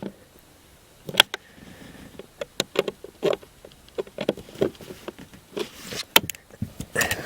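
Irregular clicks and knocks of screws, a screwdriver and plastic parts as a blower motor resistor is fastened in with two screws. A faint, short buzz comes in about a second in.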